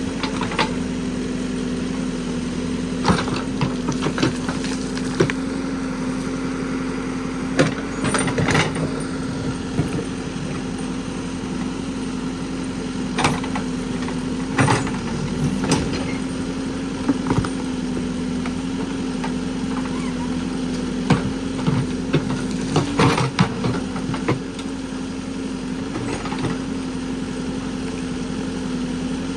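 Caterpillar backhoe loader's diesel engine running steadily while the backhoe arm digs. Short, sharp knocks and clunks come and go as the bucket and arm work the soil.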